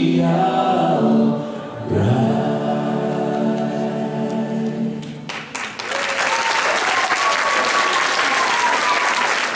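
A group of voices singing the song's final notes and holding the last chord, which ends about five seconds in. Then the audience breaks into applause.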